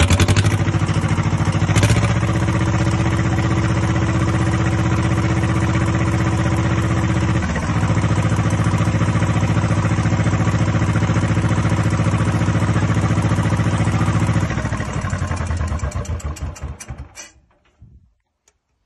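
Ford 1600 tractor engine idling steadily through a straight-pipe vertical exhaust stack, just after being started. About fifteen seconds in it is shut off and runs down to a stop within a couple of seconds.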